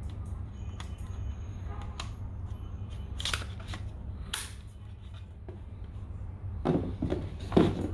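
Plastic drone body being handled and turned over in the hands: scattered light clicks and rubbing, then a few louder knocks near the end, over a steady low hum.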